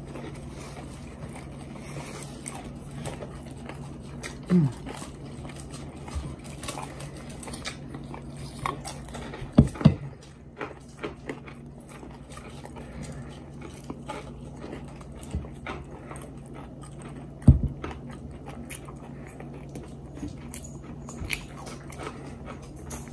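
People chewing and biting into crispy double-fried hand-cut fries and cheeseburgers close to the microphone: scattered crunches and mouth clicks over a low steady hum, with two sharp knocks, about ten and seventeen seconds in.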